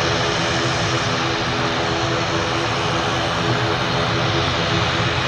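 Aircraft engines running steadily and loudly at an airport: a constant rushing noise with a steady drone of several tones.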